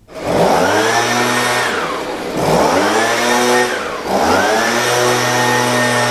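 Handheld electric air blower switched on three times: its motor whirs up to speed, winds down in falling pitch twice, then runs steadily, blasting debris off the tractor's hood cowling.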